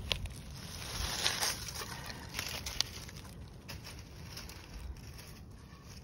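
Footsteps crunching and rustling through dry fallen leaves and twigs, with a few sharp snaps in the first three seconds, then growing quieter as the steps slow.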